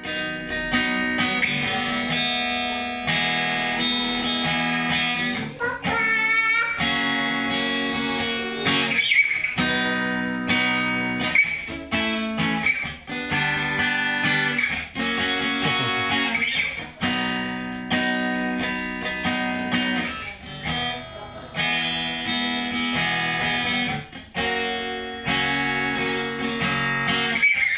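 Guitar strummed in held chords, with a run of sliding notes about six seconds in.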